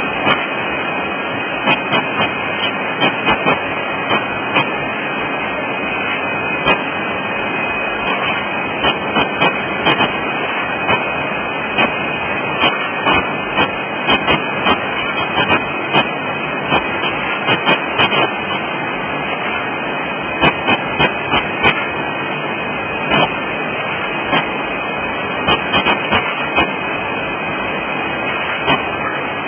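Automatic packaging machine running: a steady mechanical noise with frequent sharp clicks at irregular intervals.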